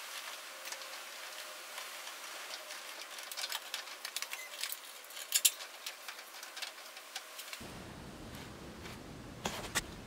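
Scattered light clicks and taps of hands fitting a plastic clip onto braided oil-cooler hoses and their fittings, with a few sharper clicks about five seconds in. Near the end a low rumble of handling noise comes in.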